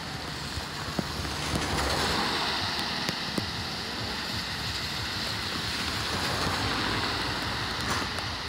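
Water rushing steadily into a street drain, swelling about two seconds in, with scattered small clicks and knocks.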